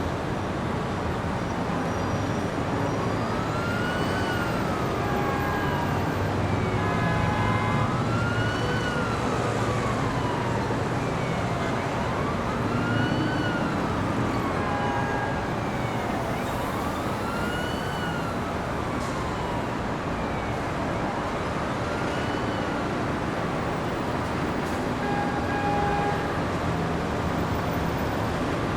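City street traffic noise with an emergency-vehicle siren wailing over it in slow rising and falling sweeps, about one every four and a half seconds, dying away near the end.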